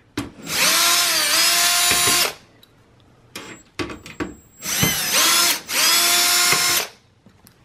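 Electric screwdriver backing out the two screws that hold the optical drive in a desktop PC case: two runs of motor whine, each about two seconds, the pitch dipping briefly as the bit bites, with small clicks of handling between them.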